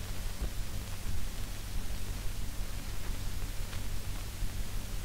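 Steady hiss and low hum with a few faint crackles: the surface noise of a 1930s optical film soundtrack running under the title card.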